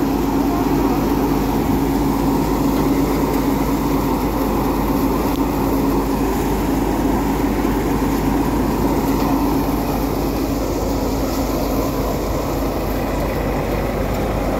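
Samrat thresher running steadily under load, a continuous mechanical drone with a constant hum.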